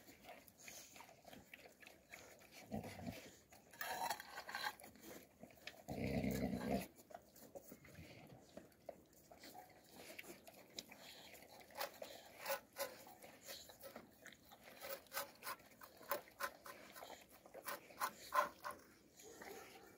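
Alabai (Central Asian Shepherd) puppies eating from bowls: scattered wet clicks of licking and chewing, with bowls knocking against the floor. There is one brief low sound about six seconds in.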